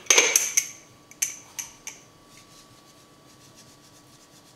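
A small glass jar of salt being handled and opened: a brief rubbing scrape, then three light clicks over the next second and a half.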